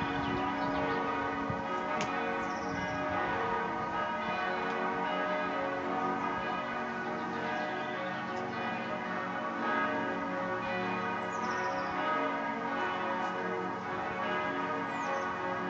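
Church bells pealing continuously, many bells sounding together in a dense wash of overlapping ringing tones.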